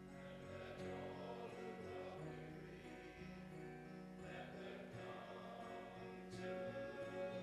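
Music: singing voices with instrumental accompaniment.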